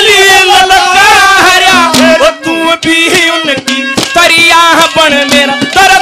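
Live Haryanvi ragni: a man sings a winding, ornamented melody through a PA system over folk accompaniment with hand-drum strokes.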